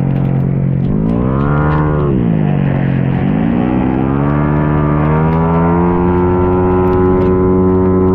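Modified Yamaha Mio J scooter's single-cylinder four-stroke engine, built up to 150 cc, racing, heard from on board. The revs rise and fall about a second in, sit low briefly, then climb from about three seconds in and hold high and steady.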